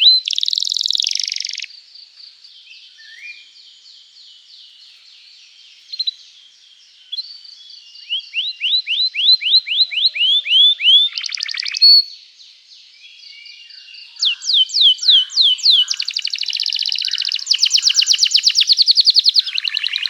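Domestic canary singing a long, continuous song: series of falling whistled notes repeated about four times a second, alternating with fast buzzy trills. The song goes quieter for a few seconds near the start, then builds again into dense rapid trills.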